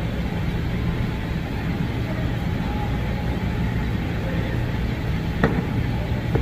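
Steady low mechanical rumble with a hum, with a single sharp knock about five and a half seconds in.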